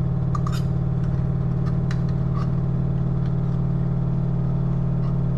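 Steady low hum of a kitchen range hood fan running, with a few light clicks of a metal spoon against a glass jar.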